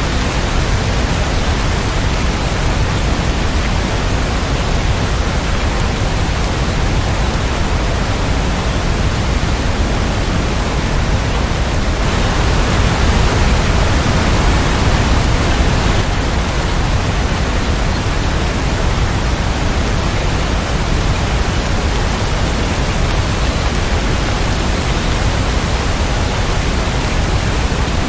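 Steady, dense rain, an even hiss with no single drops or thunder standing out, swelling slightly for a few seconds around the middle.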